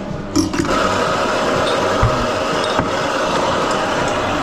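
Espresso grinder motor switching on about half a second in and running steadily, grinding coffee into a portafilter.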